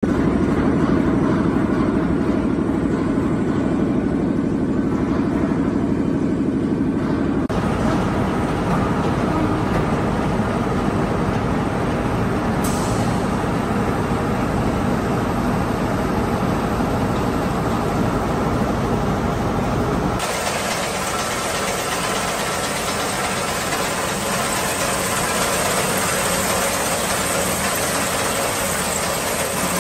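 Hammer mill shredder line for scrap aluminium, with a 350 kW motor, running loudly and steadily; the machine noise shifts abruptly several times. In the last third a strong hiss and rattle comes in, fitting shredded aluminium chips pouring onto a conveyor.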